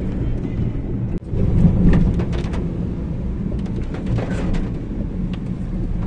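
Car cabin noise while driving on wet roads: a steady low rumble of engine and tyres, with a brief dropout about a second in.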